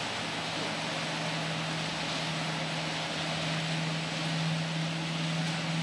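Gas station fuel pump running while gasoline flows through the nozzle into a car's tank: a steady hum with a rushing hiss, slightly louder in the second half.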